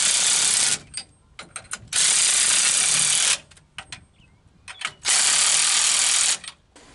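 Power wrench spinning U-bolt nuts up onto a truck's rear leaf-spring lift block in three runs of about a second or more each, snugging them down to hold the axle in place. A few light metallic clicks come between the runs.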